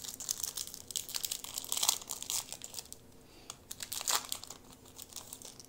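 Foil wrapper of a Pokémon trading card booster pack crinkling and tearing as it is pulled open by hand. A dense run of crackles fills the first two and a half seconds, loudest near the two-second mark, and a second short burst comes about four seconds in.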